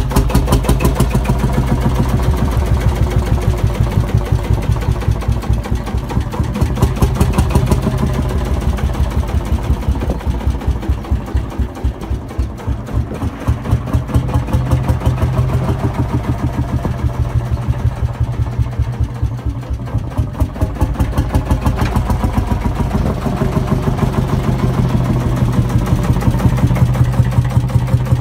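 Field Marshall tractor's single-cylinder two-stroke diesel running with a slow, even chugging beat. The beat slows and quietens in the middle, then picks up again near the end.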